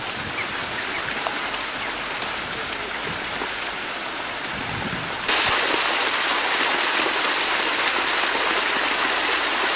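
Small stepped garden waterfall splashing steadily into a pond, the water rushing louder from about five seconds in, close to the falling water.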